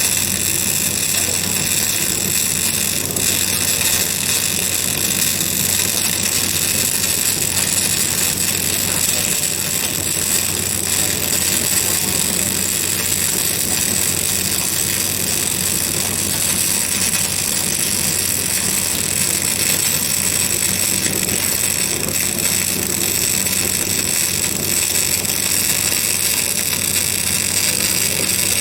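Electric arc welding in progress: a steady, unbroken hiss and crackle of the arc with a low hum underneath.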